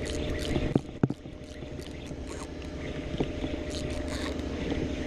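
A boat's engine running steadily with water around the hull, with scattered light ticks and two sharp knocks about a second in.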